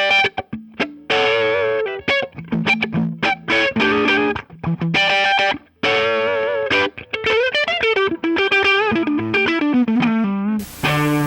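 Electric guitar, a PRS CU24-08, played through a PRS Mary Cries optical compressor pedal into a PRS Archon 25 amp with a driven, distorted tone. It plays a lead phrase of picked notes, some short and choppy and some held with vibrato, and ends on a held chord near the end.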